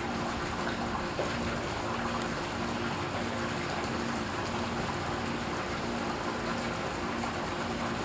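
Steady running water from a garden fountain, with a low pulsing hum underneath and a faint steady high whine.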